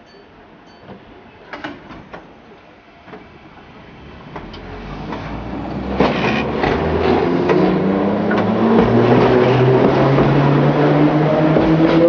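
1938 tube stock electric train pulling away from a platform and passing close by. A few sharp clicks come first, then from about four seconds in it grows louder, and its motor whine rises steadily in pitch over wheel and rail noise as it gathers speed.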